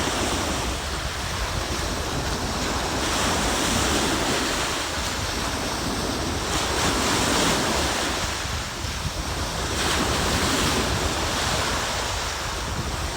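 Ocean surf washing onto the beach, swelling and easing every few seconds, with wind buffeting the microphone.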